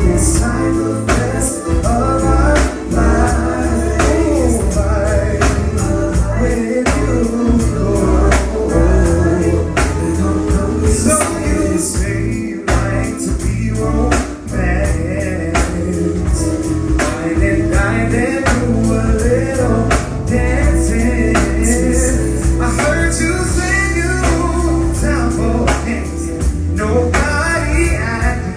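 Live band music with singing, a drum kit keeping a steady beat throughout.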